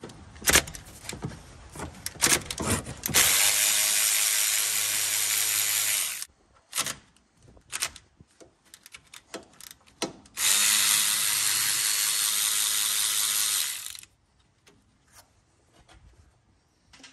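Cordless ratchet wrench with a socket running twice, about three seconds each time, backing out the brake caliper bolts. Clicks and knocks of the tool being fitted onto the bolts come before and between the runs.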